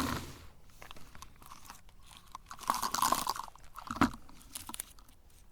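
Cookies crunching as they are crushed in a meat grinder, in irregular crackling bouts, with a louder stretch about three seconds in and a sharp crack about four seconds in.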